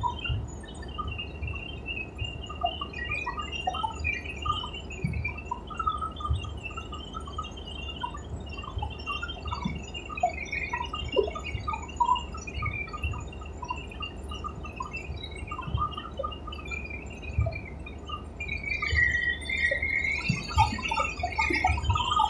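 Helicopter noise heard from inside the cabin in flight: a steady low rumble with a high whine that wavers up and down in pitch.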